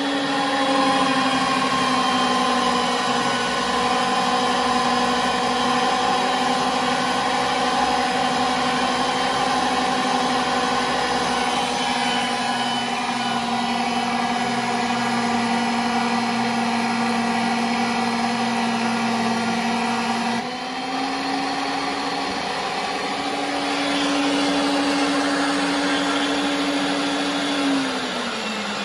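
Ridgid power pipe-threading machine running, its motor and spinning chuck giving a steady hum while the die head cuts threads on rigid conduit. About two-thirds through the sound changes abruptly. Near the end the motor's pitch falls as the machine winds down.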